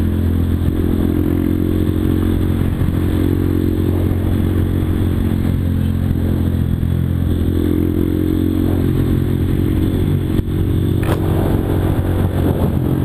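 Yamaha Fazer 250 single-cylinder motorcycle engine running steadily through a Jeskap aftermarket exhaust. Its engine speed dips and picks back up about halfway through, and there is a single sharp click near the end.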